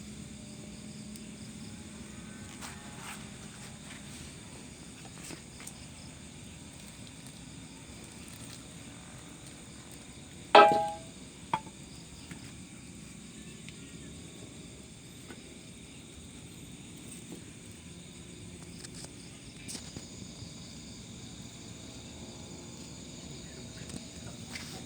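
Burning chunk of wood hissing steadily, with faint high tones held over the hiss. About ten seconds in there is one loud sharp pop with a brief ringing squeal, and a smaller click about a second later.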